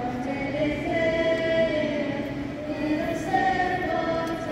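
A school choir singing the national anthem in slow, long held notes, several voices together, carrying through the arena.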